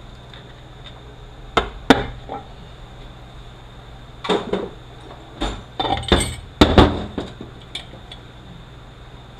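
Irregular metallic clanks and taps of hand tools on a Toyota U760E automatic transmission's case during teardown, most of them bunched between about four and seven seconds in.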